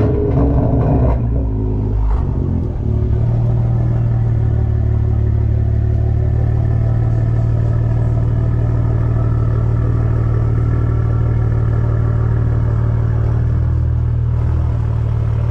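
A motor starts with a loud surge, settles after about two seconds, and then runs on with a steady low drone.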